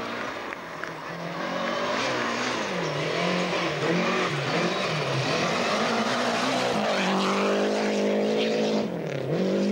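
Rally car engine revving hard, its pitch rising and falling repeatedly as it goes through gear changes, then holding a steady high note near the end before dropping off.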